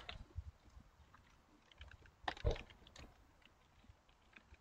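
Typing on a computer keyboard: scattered keystrokes with one louder knock about halfway through.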